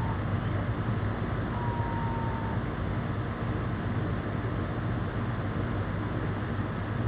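Steady low machine hum with a hiss over it, from the refrigeration equipment running, with a faint thin whistle that dips slightly in pitch about two seconds in.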